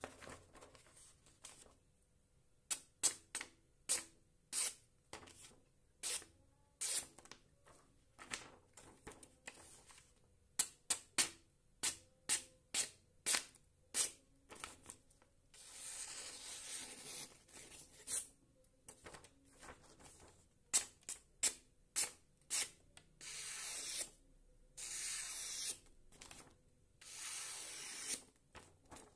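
A sharp knife, its blade made of Stihl chainsaw bar steel, slicing through a hand-held sheet of paper in a sharpness test: many short crisp snaps and crackles of the paper, and three longer steady slicing hisses in the second half.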